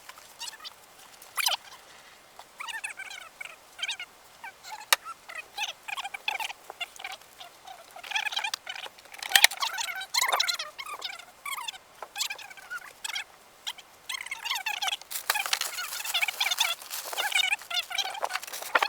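Birds calling in many short chirps and squawks, busiest in the second half, with a few sharp clicks or knocks among them.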